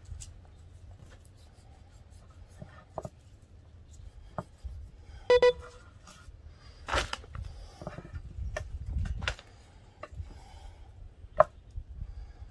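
Knife trimming sinew and fat off raw beef ribs: scattered soft knocks, clicks and scrapes of blade and meat. About five seconds in, a short honk-like tone sounds twice in quick succession, the loudest thing here.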